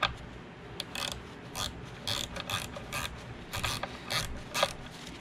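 Ratcheting wrench clicking in short, uneven strokes, about two a second, as the set screw in a tile saw guide wheel's hub is backed out.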